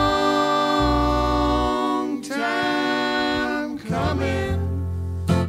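Several voices singing a bluegrass song in close harmony, largely unaccompanied, holding long notes across about three phrases. A sharp strum near the end marks the instruments coming back in.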